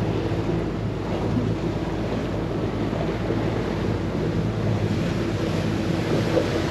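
Boat motor running steadily under way, a low hum with a few held tones. Wind buffets the microphone and water rushes past the hull.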